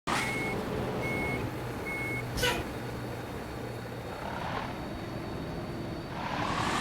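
A vehicle's reversing alarm beeps three times, evenly spaced, over a running engine's steady hum. A sharp click follows, and later a rushing noise, as of passing traffic, swells twice.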